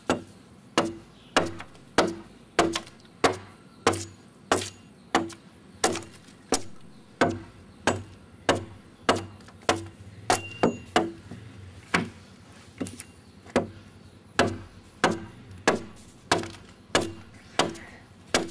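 A blade chopping into wood inside a dugout canoe hull as it is hollowed out by hand. The sharp chops fall in a steady rhythm of about one and a half a second.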